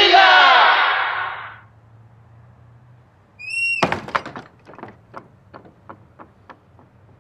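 Music fading out. Then a short ringing tone, and a door shutting with a thunk about four seconds in, followed by about a dozen taps that grow fainter.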